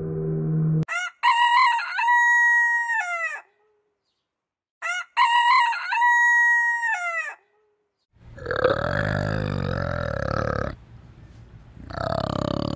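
A rooster crowing twice, each crow a few short rising notes and then a long held note that falls away at the end. After a short gap, a different, low and rough animal vocal sound fills the last few seconds.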